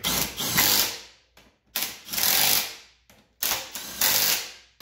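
Cordless Kobalt impact wrench run in three short bursts, hammering as it runs fasteners down at the rear wheel hub.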